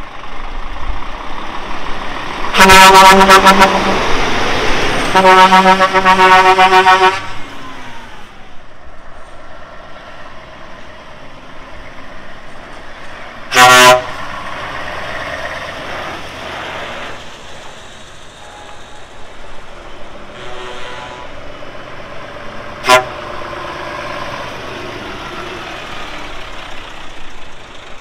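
Lorry horns sounding over running truck engines: two long, loud blasts in the first seven seconds, a short blast about halfway through, a fainter one later and a quick toot near the end.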